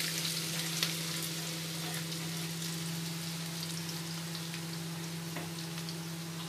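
Chopped onions frying in hot oil with whole spices and curry leaves in a non-stick wok: a steady sizzle with scattered crackles, loudest just as they go in and easing a little.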